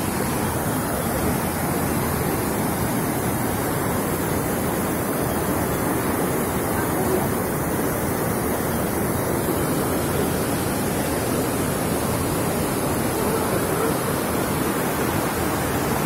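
White water rushing and splashing over boulders in a rocky stream cascade, a steady unbroken noise.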